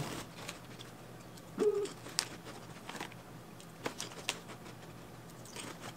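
A person eating a snack: faint, scattered crunching and mouth clicks, with a short hummed "mmm" about a second and a half in.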